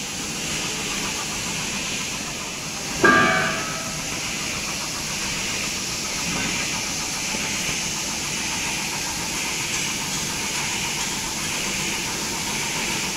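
Steady hiss of workshop background noise, with one loud short knock about three seconds in that rings briefly, as the metal straightener machine is handled.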